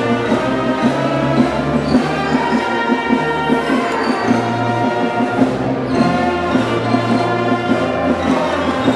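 Orchestral music with brass, held chords over a moving bass line and a steady beat.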